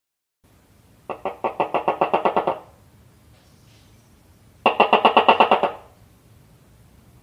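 Tokay gecko calling in two bursts of rapid pulses, about ten a second, each lasting a second or so.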